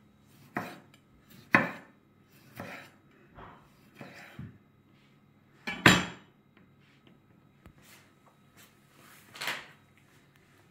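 Chef's knife slicing cherry tomatoes on a wooden cutting board: separate sharp knocks of the blade on the board, about one a second at first. One much louder knock comes about six seconds in, as the knife is set down on the board, and a softer one follows near the end.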